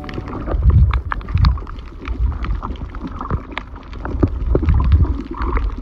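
Underwater sound over a shallow coral reef: an uneven low rumble of moving water that swells and fades, with many sharp, scattered clicks and crackles.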